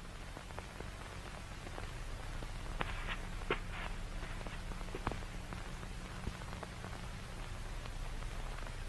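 Steady static hiss over a low electrical hum, the lo-fi background of an analog horror video, with a few faint clicks or taps around three and five seconds in.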